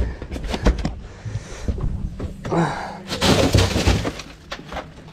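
Sharp knocks and thuds against a fiberglass boat as a kicking red grouper is handled and put into the fish box, with a longer, noisier burst of scuffling about three seconds in.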